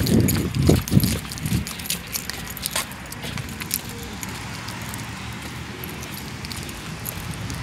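Steady noise of road traffic passing, with scattered small clicks and rattles throughout. Muffled low rumbles on the microphone in the first second and a half.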